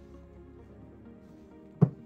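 Background music with steady sustained tones, and one sharp knock near the end.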